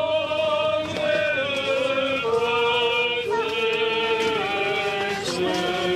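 Orthodox liturgical chant: voices singing long held notes that step from pitch to pitch.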